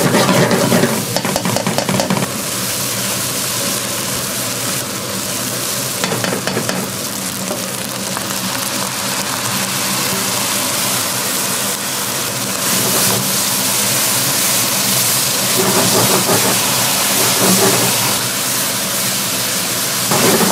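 Food frying: a continuous sizzling hiss with scattered crackles, over a steady hum.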